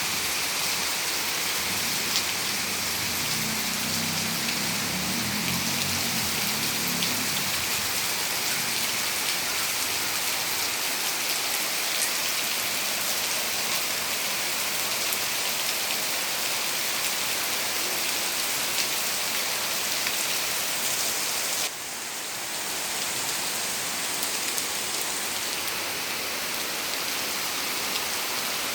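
Heavy rain falling steadily as an even hiss of drops, with a few sharper drip ticks. About three quarters of the way through, the level drops suddenly, and the rain goes on a little quieter.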